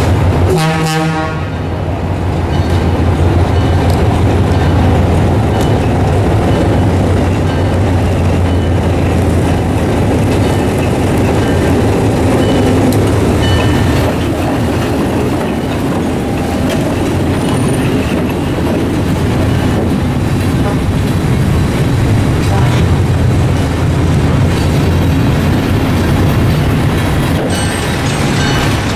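EMD SW8 switcher's two-stroke V8 diesel engine running steadily as the locomotive rolls slowly past at close range. There is a short horn blast about a second in.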